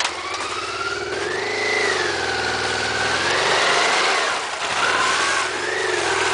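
Dual-sport motorcycle engine running and being revved, its pitch rising and falling several times as the bike pulls away over snow.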